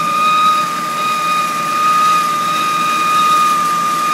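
1997 Honda Civic DX's four-cylinder engine running with a steady high-pitched whine riding over it, one held tone with fainter overtones above it. The owner suspects the whine comes from the timing belt.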